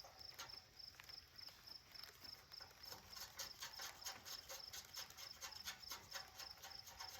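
Faint crickets chirping in a steady, evenly pulsing high trill, with scattered light ticks.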